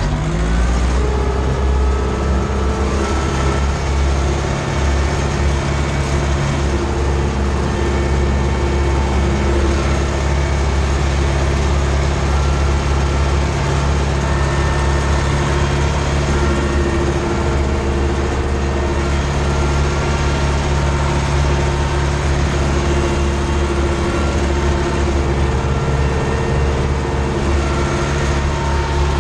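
Ursus C-360 tractor's four-cylinder diesel engine running steadily under load while pulling a cultivator aggregate, heard from inside the cab.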